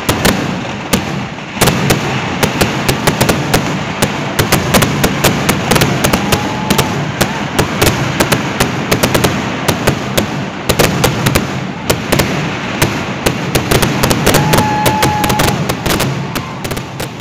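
Fireworks display: a continuous barrage of sharp cracks and bangs from exploding aerial shells and firecrackers, many per second, over a rolling rumble. A short whistling tone sounds twice.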